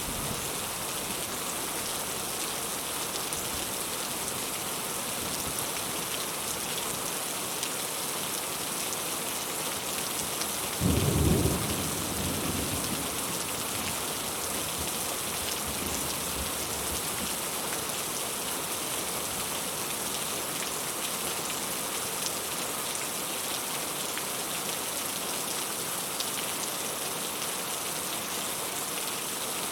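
Steady heavy rain hissing, with one low rumble of thunder about a third of the way in that is louder than the rain and dies away within a couple of seconds.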